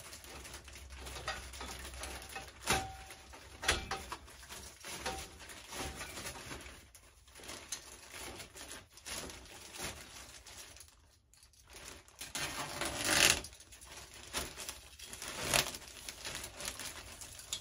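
Scattered rustling and light knocks from handling a plastic-wrapped steel canopy frame on cardboard, with a longer, louder rustle near the end.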